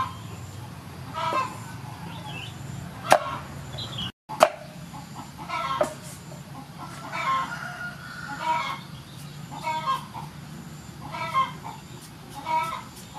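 Chickens clucking, a short call every second or so, with two sharp knocks about three and four seconds in.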